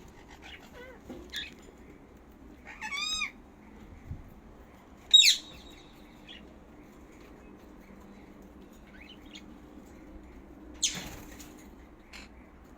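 Pet parrots calling in separate short calls: a few chirps about a second in, a wavering call about three seconds in, a sharp high squawk about five seconds in (the loudest), and another shrill squawk near eleven seconds.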